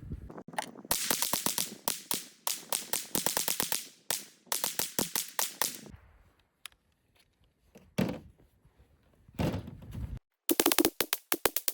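Ruger 10/22 semi-automatic .22 LR rifle fired rapidly, several sharp cracks a second in quick strings. The firing pauses for a few seconds in the middle and resumes near the end.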